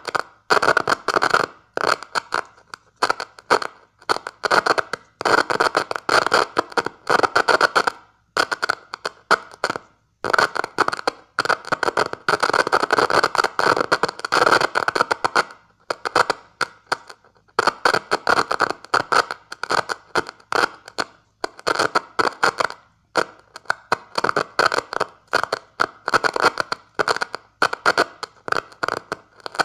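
Crackling, scratchy electrical noise keyed on and off in irregular groups of short and longer bursts, like hand-sent Morse code, from two screwdriver tips touched together as a makeshift key in a homemade magnetic-amplifier circuit.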